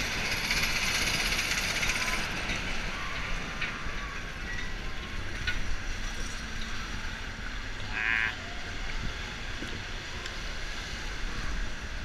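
River rafting ride's conveyor lift carrying the round raft up, a steady mechanical clatter and hiss that eases off about two seconds in as the raft tips into the channel. A low rumble of ride machinery then runs on, with a short high squeal partway through.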